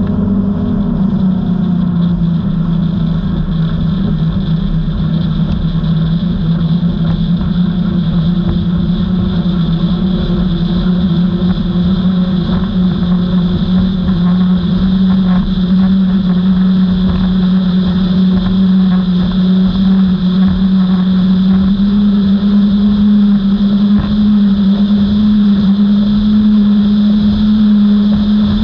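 Outboard motors on a Skater 32 performance boat running hard at cruising speed: a loud, steady engine drone that rises slightly in pitch about two-thirds of the way through and holds there.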